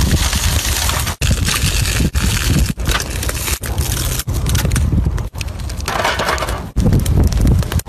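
Cooking on a hot stone slab over a wood fire: sizzling and crackling, with crinkling of aluminium foil trays. The sound breaks off for an instant every second or so at quick cuts.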